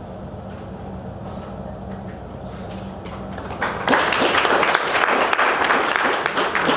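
Quiet room noise with a faint low hum, then an audience suddenly breaks into applause about three and a half seconds in, many hands clapping.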